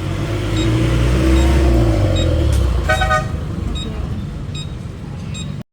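Road vehicle engine running and revving, with a short horn toot about three seconds in. The sound cuts off suddenly near the end.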